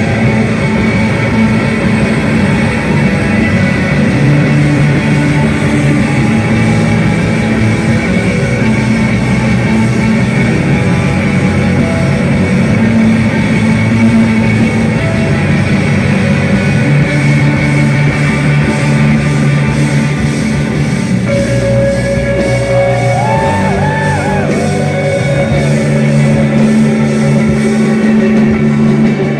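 Live instrumental post-rock played loud by a full band: layered electric guitars ringing over bass and drums, with sustained guitar notes and short bent guitar phrases in the second half.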